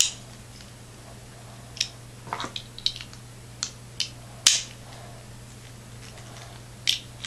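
Plastic parts of a Beyblade XTS Striker Drone top clicking and snapping as the upper and lower halves are pushed together and twisted: a few sharp clicks spread over several seconds, the loudest about halfway through.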